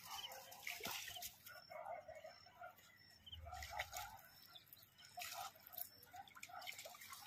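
Water splashing and sloshing as a large fish swirls at the surface close to the bank, in short irregular splashes, with birds chirping throughout.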